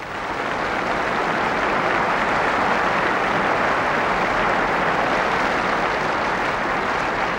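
Large stadium crowd applauding, swelling over the first second and then holding steady.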